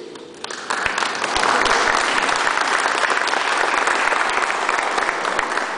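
Audience applauding: many hands clapping together, starting suddenly about half a second in and tailing off near the end.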